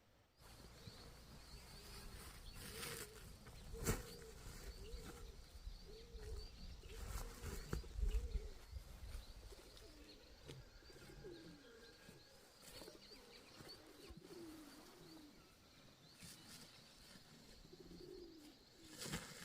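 Birds calling, a run of short, low, arching calls repeated every second or so, with a faint high chirping behind them and a few sharp knocks.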